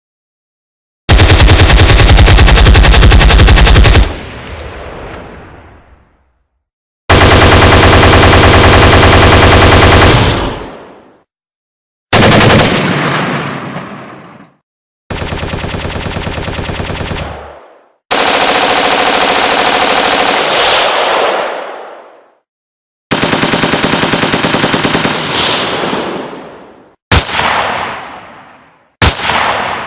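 Automatic gunfire sound effects: about six separate rapid-fire bursts of one to four seconds each, each ending with an echoing tail, then two single loud shots near the end.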